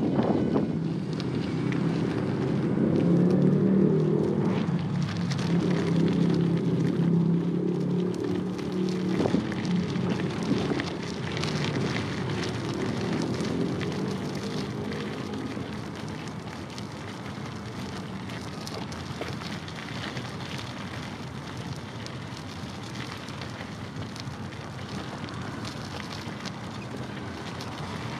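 Wind buffeting a small camera's microphone, over a low mechanical hum that fades away after about fifteen seconds.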